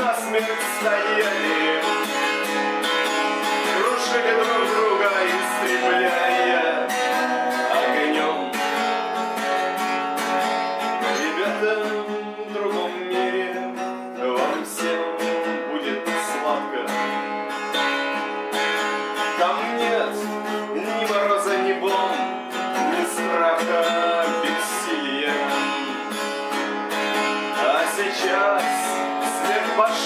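Music: a song backed by strummed acoustic guitar.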